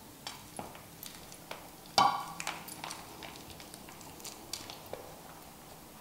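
Eating a seafood boil by hand: scattered small clicks and taps of food, shells and dishes, with one louder ringing clink about two seconds in.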